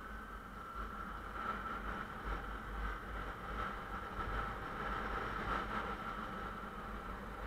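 Motorcycle riding steadily at road speed: a continuous engine drone with a low, gusty wind rumble on the microphone.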